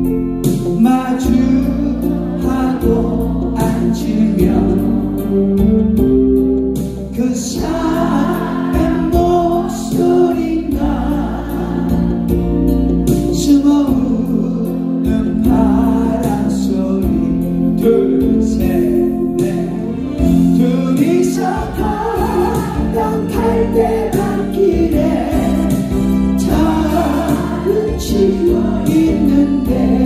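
Music: a group of voices singing a Korean ballad over a recorded instrumental accompaniment with a steady bass line.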